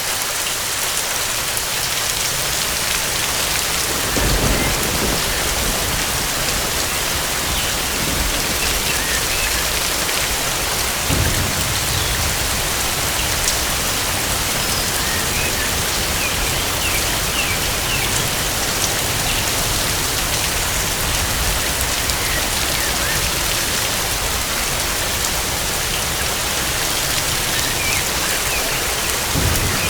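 Steady heavy rain falling, with low rumbles of thunder about four seconds in, around eleven seconds, and again near the end.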